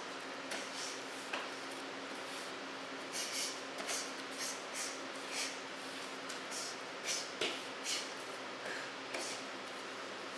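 Quick swishing rustles of a karate student moving through a form, about a dozen short bursts at irregular intervals over a steady hum and hiss.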